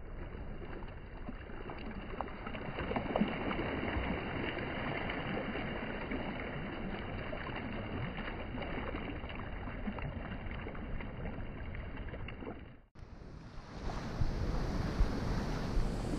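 Seawater sloshing and splashing close to the microphone, muffled and with many small crackling splashes, for about thirteen seconds. It then breaks off suddenly and is followed by the wash of surf with wind on the microphone.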